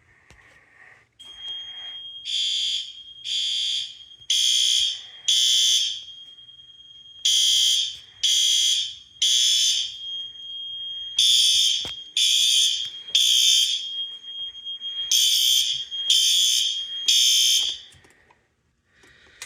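Fire alarm horns sounding the temporal-three evacuation pattern, three short blasts, a pause, then again, over a steady high-pitched tone. They start about two seconds in and stop near the end. This is a smoke detector alarm on zone 2, set off by testing a System Sensor 2451TH detector.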